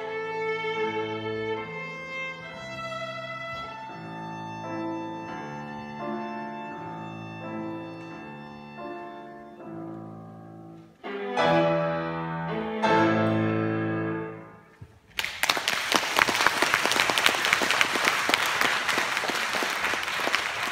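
Viola and piano play the closing bars of a piece, ending on two loud final chords that ring out and fade. Then audience applause breaks out and continues.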